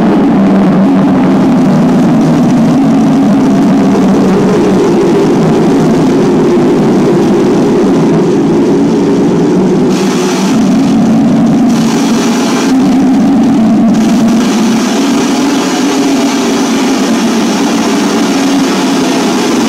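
Loud, dense electronic drone from a keyboard and electronics played live, a thick low-middle mass that holds steady throughout. About halfway through, two short stretches of high hiss are layered on top.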